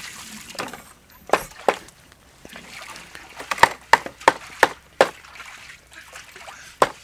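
Cleaver chopping chicken feet on a wooden chopping board: a run of sharp knocks coming in uneven groups of two to four, up to about three a second.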